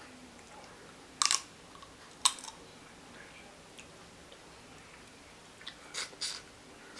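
Crab legs being eaten close to the microphone: four short, sharp cracks of shell, one about a second in, another a second later, and two in quick succession near the end.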